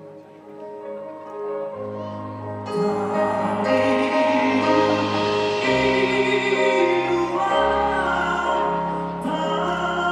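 Live Batak gondang hasapi ensemble music, traditional instruments playing with a string section and band; it swells louder and fuller about two and a half seconds in.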